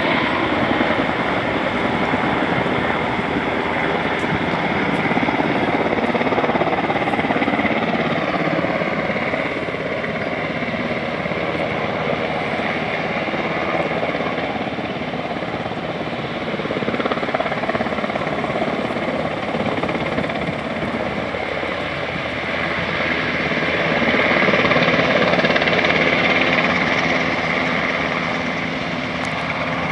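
Firefighting helicopters running steadily, their rotors beating rapidly: a Chinook overhead and a Sikorsky Firehawk hovering low over the lake to take on water. The sound grows louder about 24 seconds in as the Firehawk rises from the water.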